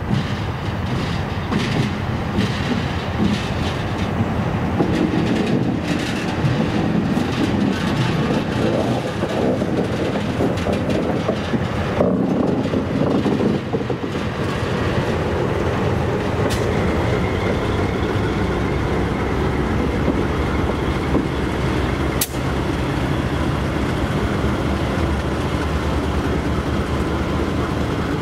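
Two EL-class diesel-electric locomotives running as they pass close by, hauling a rail train, with wheels clacking over the rail. About halfway through a steady high whine joins the engine sound, and there is one sharp click later on.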